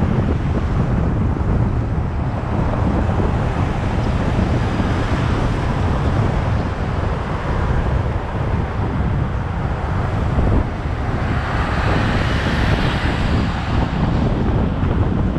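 Wind buffeting the microphone on a moving vehicle, over steady road and traffic noise. A higher hiss swells and fades about twelve seconds in.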